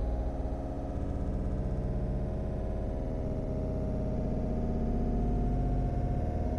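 Background synthesizer music of sustained low tones, steady throughout.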